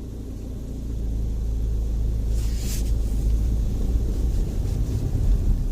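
Opel Meriva B pulling away from a standstill, heard from inside the cabin: low engine and road rumble that grows louder about a second in as the car accelerates, with a brief hiss about two and a half seconds in. The squeak from behind the centre console is absent with the air recirculation switched on.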